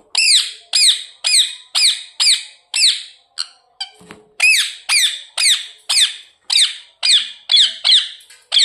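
Ringneck parrot (rose-ringed parakeet) calling in a fast run of shrill, repeated squawks, each note sliding down in pitch, about two a second. The run breaks off for about a second near the middle, then goes on.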